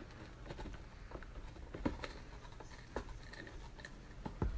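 Faint, irregular clicks and scrapes from hands working a cardboard shoebox.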